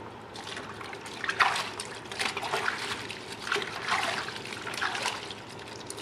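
Hands working a duck skin in a basin of soapy water, scraping and rinsing fat and blood out of it: irregular small splashes and trickles of water.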